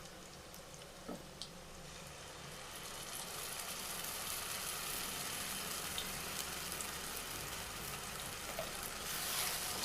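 Garlic and brinjal pieces frying in hot oil in a pan: a steady sizzle that grows louder from about three seconds in, with a couple of small clicks near the start.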